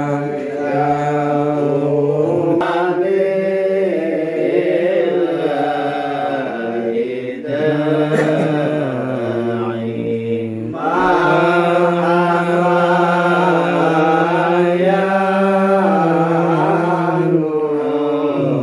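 Islamic devotional chanting in Arabic (shalawat), sung in long, held melodic phrases with a few short breaks.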